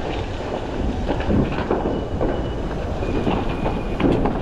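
Fire hose nozzle spraying a high-pressure water stream, a loud steady rush, with scattered cracks and knocks mixed in.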